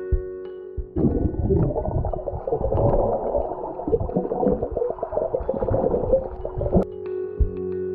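Muffled underwater bubbling and churning water, heard through a submerged camera, as a swimmer moves and lets out air bubbles. It starts about a second in and stops suddenly near the end, with soft mallet-instrument music before and after.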